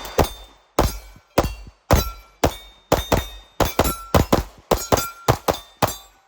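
Pistol fire from a 1911/2011-style handgun: a long, rapid string of shots, roughly three a second and some in quick pairs. A brief ringing tone follows several of the shots.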